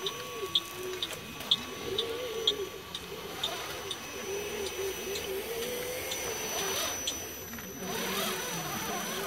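Small electric hydraulic pump of a scale RC Mercedes-Benz Actros Meiller tipper whining as it raises the tipper bed to dump its load, the pitch wavering with the load. Light regular ticks about twice a second over the first few seconds.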